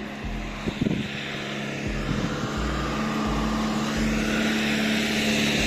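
A motor vehicle's engine running with a steady hum that grows louder through the second half.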